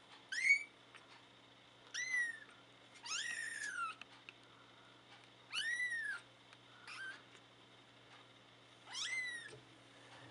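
Three-week-old kittens mewing: about six high, thin calls spread out with short pauses, each rising and then falling in pitch.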